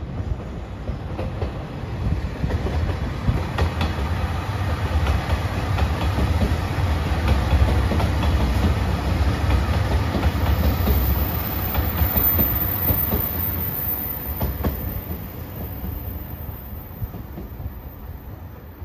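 JR Shikoku 2700 series diesel limited express passing: engine drone and wheels clacking over rail joints. It grows louder to a peak about halfway through, then fades as the train draws away.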